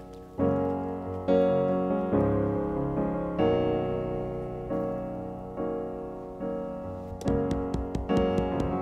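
Background piano music: chords struck about once a second, each fading away, with quicker notes near the end.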